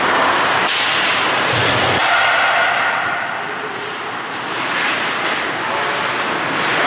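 Ice hockey play heard from the boards of an indoor rink: skate blades scraping and carving the ice, with short knocks and swishes of sticks and puck, over a steady hollow rink noise that dips a little about halfway through.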